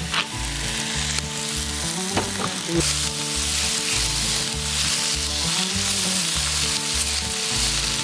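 Beef offal and squid frying hard on a hot steel griddle over a wood fire, a steady loud sizzle. Metal spatulas scrape and tap against the plate as the pieces are turned.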